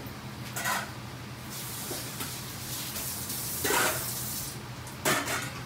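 Kitchen sink tap running for about three seconds, starting about a second and a half in, with a few short clatters of kitchenware, one before the water and two later.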